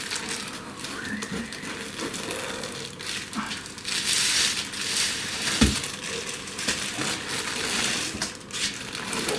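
Packing material rustling and crinkling as parts are handled and lifted out of a shipping box, with a single low thump a little past halfway.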